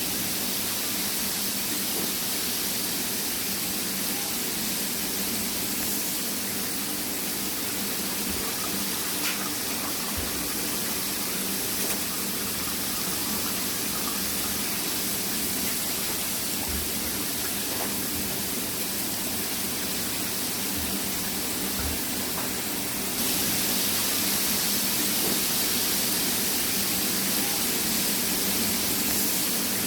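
Industrial continuous conveyor fryer line running: a steady rushing hiss over a low machine hum. The hiss gets louder and brighter a little over three quarters of the way through.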